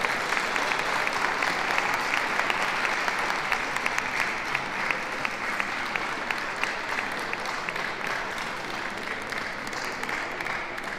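Audience clapping steadily, a dense patter of many hands that slowly thins and fades toward the end.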